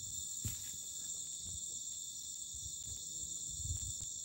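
Chorus of night insects such as crickets, a steady high-pitched chirring, with scattered soft low thumps underneath.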